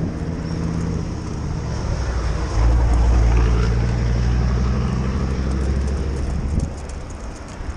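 An engine running with a low, steady hum that gets louder about two and a half seconds in and drops away suddenly near the end.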